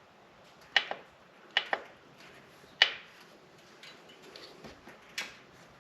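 A few short, sharp metallic clicks and clinks, about five of them spread over several seconds with quiet in between, as the heel shifter and its hardware are handled and fitted on the motorcycle's shift linkage.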